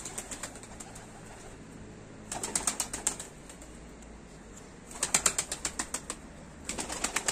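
Young domestic pigeons' wings flapping in three short bursts of quick, even beats as the birds land and flutter on a rooftop ledge.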